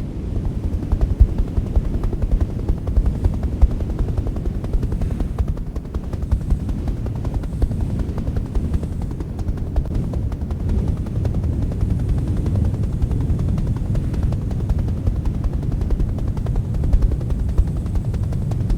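Steady, loud low rumble with rapid, irregular fluttering and no clear pitch.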